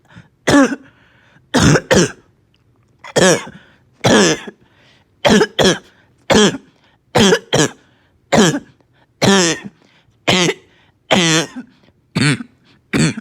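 A person's barking cough, repeated about once a second in single and double coughs, each with a hoarse voiced tone that drops in pitch.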